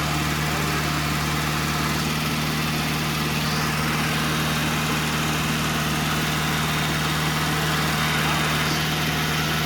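Freshly rebuilt 1098 cc A-series engine of a classic Mini, breathing through twin SU carburettors and a Maniflow extractor exhaust, idling steadily during its first run after the rebuild.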